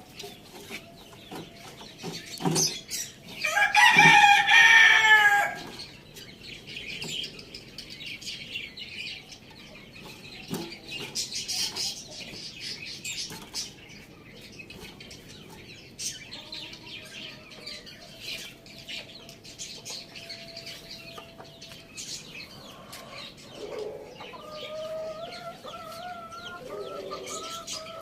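Chickens: a rooster crows once, loudly, about four seconds in, the crow lasting about two seconds. Hens cluck and call softly around it, with scattered short taps and a run of calls near the end.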